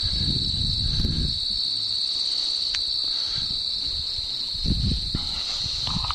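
Steady high chorus of crickets trilling, with low rustling noises loudest in the first second and again about five seconds in.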